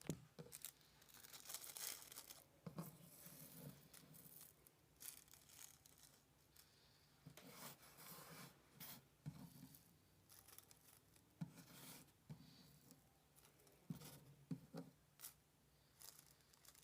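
Rolling paper crinkling and rustling in short, irregular bursts as a joint is rolled by hand, with a few soft taps along the way. Quiet.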